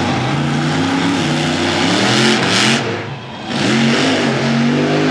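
Monster truck engine revving hard, its pitch climbing in steps and falling back with the throttle. A loud rushing hiss cuts in about two seconds in, and after a short dip the engine climbs again.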